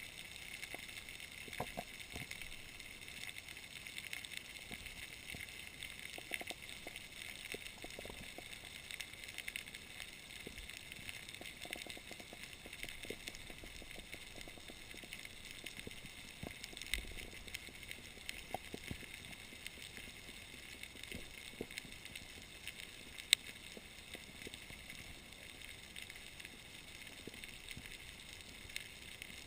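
Faint underwater ambience recorded through a camera housing: a steady hiss with scattered crackles and clicks, and one sharper click about two-thirds of the way through.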